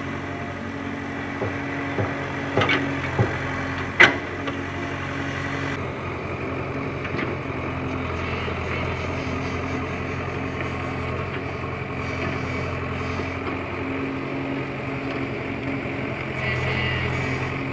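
Tata Hitachi EX70 mini excavator's 58 HP diesel engine running steadily as it works soil, with a few sharp knocks in the first four seconds. The engine gets a little louder near the end.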